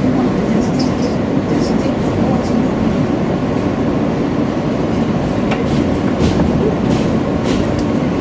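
Elevated New York City subway train heard from inside the car as it rolls along a station platform: a steady noise of wheels on the rails, with scattered sharp clicks and squeaks from the track.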